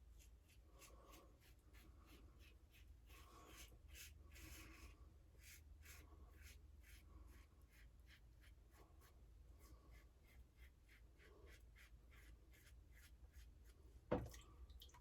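Blackland Vector razor with a Feather Pro Guard blade scraping through lathered stubble in quick, short, faint strokes, a few a second. A single sharp knock near the end.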